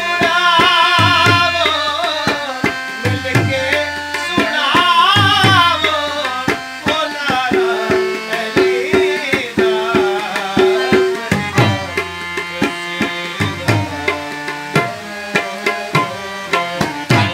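Tabla played in a steady qawwali rhythm, its strokes running through, while a man sings long, wavering, ornamented lines over it in the first six seconds; after that the tabla carries on with quick strokes and little voice.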